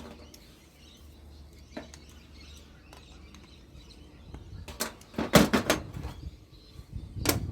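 Sharp metallic knocks and clicks from handling and cutting scrap copper, with a quick cluster of them about five seconds in.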